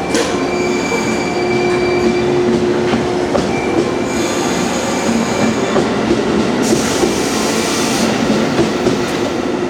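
Electric train of two coupled multiple-unit sets running along the track, wheels squealing on the rails with a steady whine over the rumble and clatter of the cars. A hiss rises briefly in the second half.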